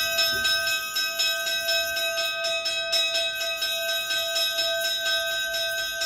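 Altar bells shaken in a rapid, continuous peal of several strokes a second, their steady ringing tones sustained throughout; rung to mark the elevation of the chalice at the consecration of the Mass.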